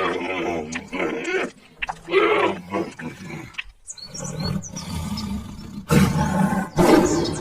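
A big cat roaring and growling in several bouts.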